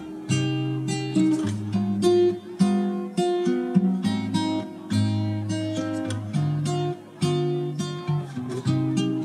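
Background music on acoustic guitar: plucked notes and strummed chords in a steady rhythm.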